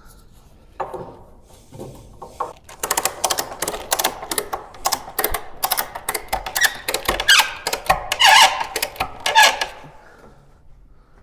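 Rapid clicking, scraping and squeaking from PVC conduit and heavy electrical cable being worked through a hole into the house, most intense in the second half.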